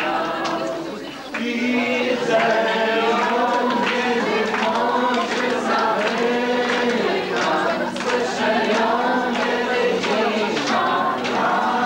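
A group of people singing a religious song together in Polish, voices holding and sliding between sustained notes, with a brief drop in loudness about a second in between lines.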